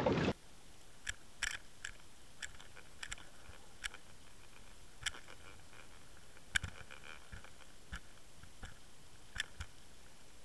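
A loud rushing noise cuts off abruptly a moment in. A low, steady hiss follows, with faint, irregular clicks and crackles scattered through it, as picked up underwater by a Waterwolf camera.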